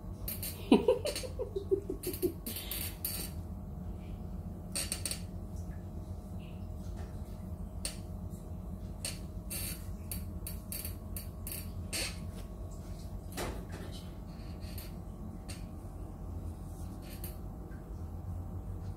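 A short whining vocal sound about a second in, rising and then falling in a few quick pulses. Scattered soft clicks and rustles sit over a steady low hum.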